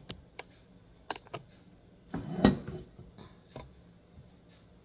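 Handling noise from a camera being moved and repositioned: scattered light clicks and taps, with one louder bump about two and a half seconds in.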